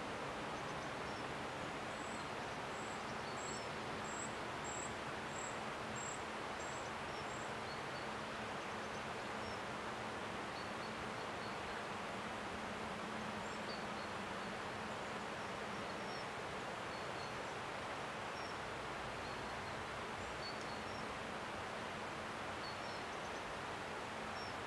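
Steady rustling hiss of the woodland background, with a small bird giving a run of about nine thin, high, evenly spaced calls a couple of seconds in, then scattered fainter chirps.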